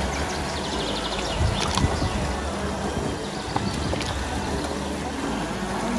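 Steady rush of a small mountain stream with a low rumble underneath, and a couple of sharp knocks about one and a half to two seconds in.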